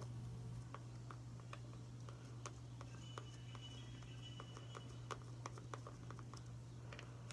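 Faint, irregular little clicks and taps of a small plastic applicator stick being rubbed against the teeth, over a steady low hum.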